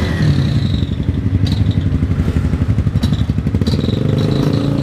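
Motorcycle engines idling close by, a steady low putter, with the engine speed rising slightly near the end.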